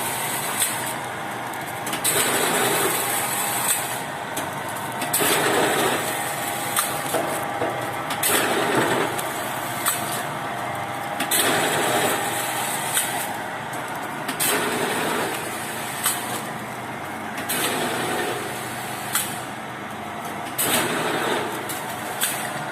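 Automatic flour-packing machine running through its repeated cycle: about every one and a half to three seconds a burst of noise rises and falls, with sharp clicks in between.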